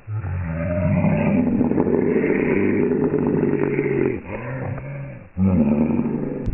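A man yelling in a loud, rough-voiced bellow of rage: one long yell of about four seconds, then two shorter ones.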